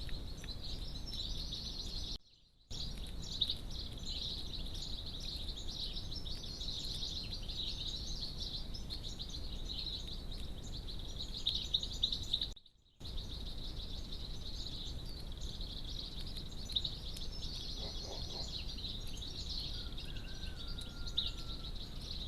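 Outdoor birdsong: a dense, continuous chatter of high chirps and twitters over a steady background hiss, cutting out abruptly twice for about half a second.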